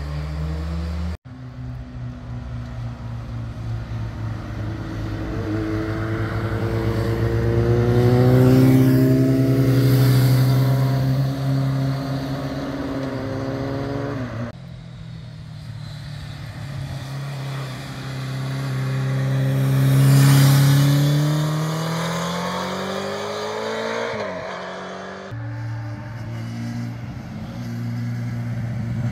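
Sport motorcycles leaning through hairpin bends and accelerating out of them one after another, engines rising in pitch through the gears, then falling off. The sound changes abruptly a few times as one bike gives way to the next.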